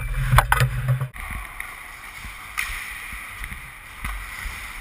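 Ice hockey play heard through a GoPro: for about the first second, clicks and clatter of sticks and skates over a low hum, then a sudden cut to a quieter, steady rush of skates on the ice with a few faint knocks.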